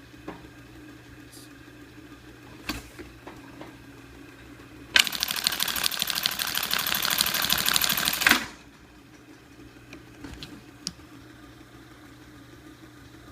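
Singer 69-8 industrial bar tacker running through one 42-stitch bar tack cycle, a fast even rattle of stitches lasting about three and a half seconds that starts and stops abruptly. A few single clicks come before and after it over a steady low motor hum.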